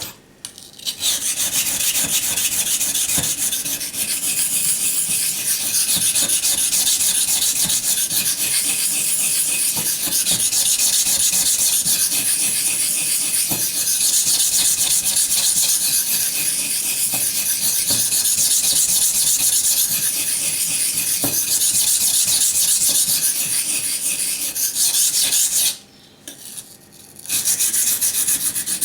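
A knife blade being ground on a coarse 220-grit green silicon carbide sharpening stone, a steady rasping scrape of continuous strokes that stops for about a second near the end and then goes on. This is coarse grinding to take out chips in the edge.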